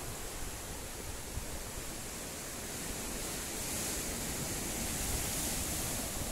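Surf breaking against a rocky shore: a steady rushing hiss over a low rumble, growing a little louder about halfway through.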